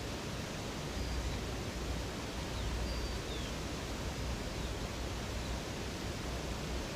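River water rushing steadily, with a few faint, short high bird chirps in the first half.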